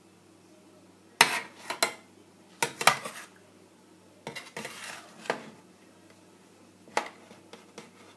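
Metal serving spoon clinking and scraping against a stainless steel baking tray and a ceramic plate while baked pasta is dished up, in several short bursts of clatter.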